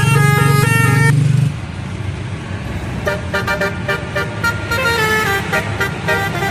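Indonesian bus telolet horns playing fast runs of musical notes. One tune stops just over a second in, vehicle noise fills a short gap, and another rapid telolet tune starts about halfway through.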